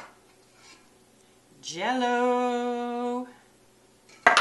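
A woman's voice holding one long sung or hummed "ooh" note, sliding up at the start and then staying level. Near the end there is a sharp clink of a glass bowl on the counter.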